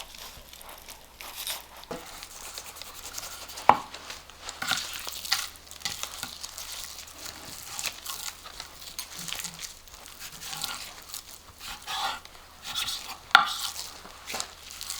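Knife slicing and trimming fat from a raw pork shoulder, irregular scraping and rasping of the blade through the meat, with a couple of sharp knocks.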